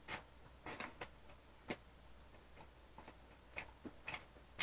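A man chewing a mouthful of burger close to the microphone: faint, irregular mouth clicks and smacks.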